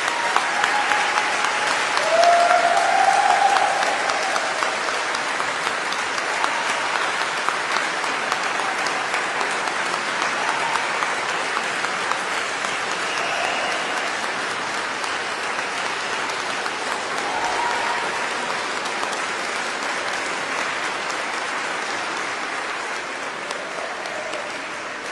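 Large audience giving a standing ovation: sustained clapping, loudest a few seconds in and tapering off near the end, with a few voices calling out over it.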